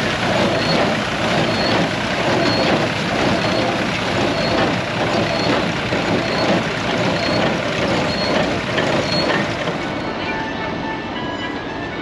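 Welger small square baler at work baling straw behind a tractor: the tractor engine runs and the baler clacks in a steady beat of about one and a half strokes a second. Near the end this gives way to a slightly quieter, even machine hum.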